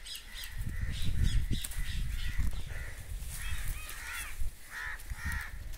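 Crows cawing several times in quick runs, mostly in the second half, over low rumbling and rustling as the brinjal plant is handled.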